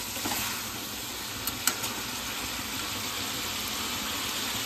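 Meat and potatoes sizzling steadily in a steel kadai, with a metal ladle clinking against the pan two or three times about a second and a half in.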